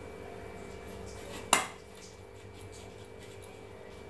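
Knife scraping and cutting into a raw elephant foot yam (suran), with light clicks and one sharp knock about one and a half seconds in, over a steady hum.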